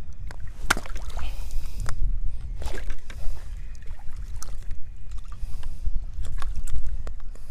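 Wind buffeting the microphone as a low rumble, with water sloshing and splashing against a kayak hull and several sharp knocks and splashes, the loudest about a second in.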